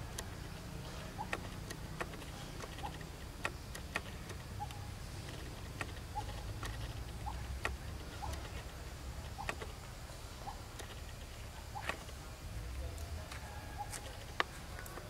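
Irregular light clicks and crackles, about one or two a second, from macaques handling food and dry leaves, over a steady low rumble.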